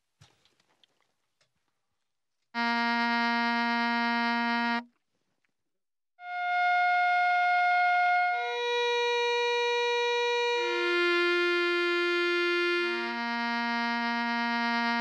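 A baritone saxophone plays one held note for about two seconds. After a short pause the same written note sounds in turn on soprano, alto, tenor and baritone saxophones, about two seconds each, each lower in pitch than the last.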